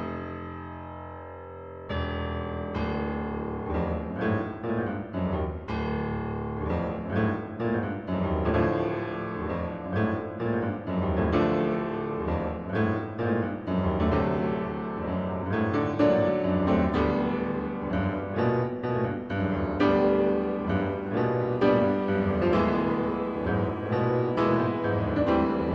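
Background piano music. One chord fades out, then quick runs of notes are played for the rest of the time.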